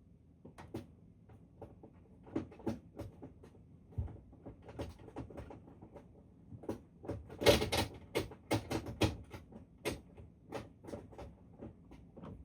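Irregular light clicks and knocks, with a louder cluster about seven and a half seconds in; no engine cranking.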